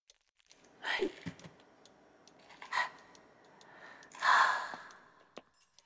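Cartoon skeleton character's breathy vocal sounds: three short sighs, the last and loudest about four seconds in, with a few faint clicks between.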